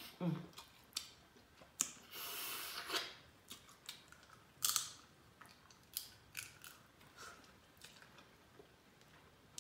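Close-up eating sounds from a Cajun seafood boil: sucking and lip smacks on sauce-covered crab legs and fingers, with scattered sharp clicks, and a longer slurping hiss about two seconds in.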